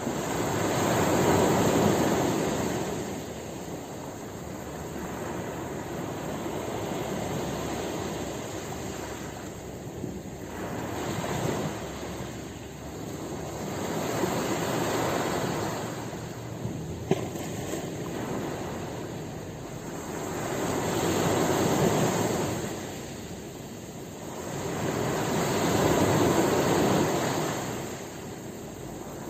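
Sea waves surging and washing in, the surf rising and falling away in slow swells every few seconds, the biggest near the start and in the last third. A single short tick about two-thirds of the way through.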